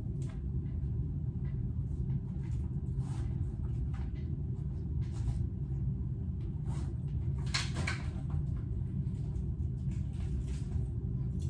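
Scattered light clicks and knocks of things being handled, a louder cluster of them about eight seconds in, over a steady low hum.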